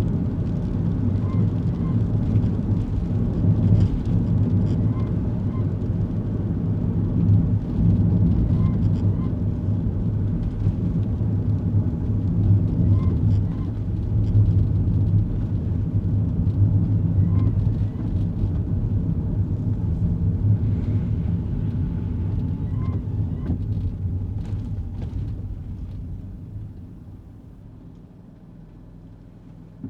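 Kei car driving, heard from inside the cabin: a steady low engine and road hum, with a faint short double squeak every four seconds or so. The hum dies down over the last few seconds as the car slows.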